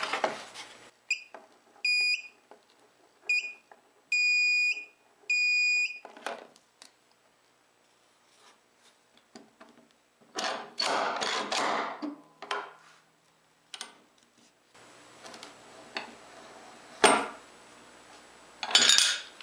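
Handheld metal detector beeping as it passes over a hidden nail in a plywood benchtop: a run of high beeps, the last two held longer. Later an antique slide-hammer nail puller works a brad out of the plywood, with a stretch of scraping and then two sharp metal knocks near the end.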